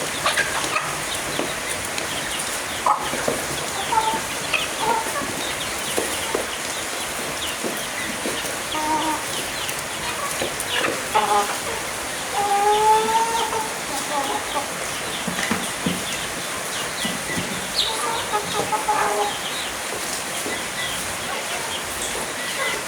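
Chickens clucking, with many short calls and a few longer drawn-out calls a little past the middle, over a steady hiss.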